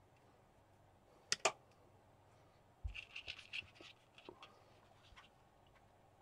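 Hands handling small parts on a workbench. There are two sharp clicks close together about a second and a half in, then a quick flurry of faint clicks and rustles a little past halfway, and a few soft ticks after that.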